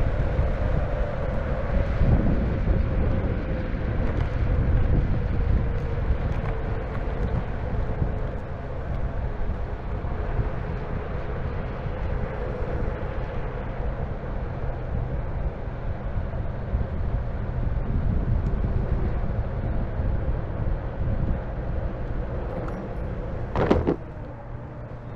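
Electric skateboard with direct-drive hub motors riding over pavement: steady wheel and road rumble with wind on the microphone, and a faint steady hum. Near the end a single sharp knock as the board rolls onto the concrete sidewalk, after which the rumble is quieter.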